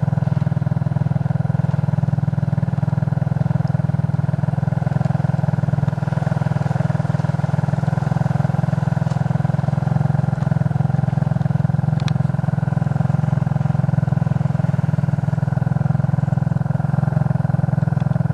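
Suzuki King Quad ATV engine running at a steady pace, an even drone that holds without revving up or down.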